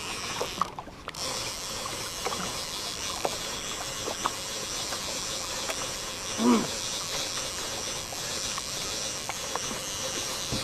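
Conventional overhead fishing reel cranked by hand, its gears whirring steadily with small scattered clicks as line is wound in, likely a hooked fish coming up from deep water. A short grunt-like voice sound about six and a half seconds in.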